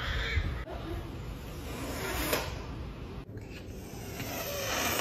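Serval hissing in breathy bursts, building to a longer hiss near the end.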